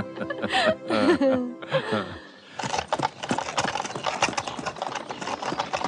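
Brief laughing voices, then from about two and a half seconds in a horse-drawn cart going by on a dirt road: hooves clip-clopping in a dense run of knocks.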